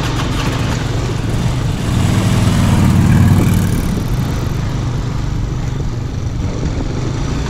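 Hero Glamour motorcycle's 125 cc single-cylinder engine running on the move, heard from the rider's seat over a steady rush of wind and road noise. The engine grows louder about two seconds in, pulling harder for a second or so, then settles back to an even run.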